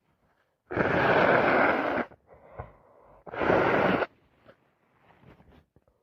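A person with a head cold blowing a congested nose hard twice: a long blow of over a second, then a shorter one, each a loud rush of air. Faint small sniffing or rustling noises follow.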